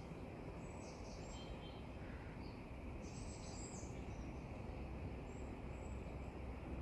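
Outdoor lakeside ambience: a steady low background rumble with faint, short bird chirps now and then.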